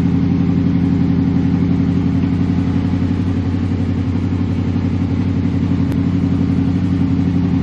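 Honda VFR800 VTEC's 781 cc V4 engine idling steadily in first gear with the clutch let out, a constant even note with no change in revs.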